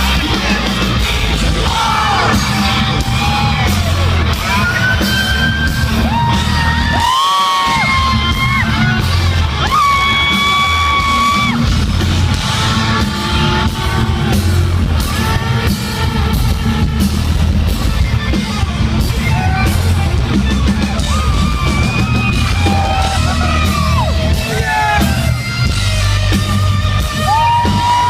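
Live heavy metal band playing loud in a large hall, with distorted guitars, bass and drums under a sung vocal line and yelling. The bass and drums drop out briefly about seven seconds in.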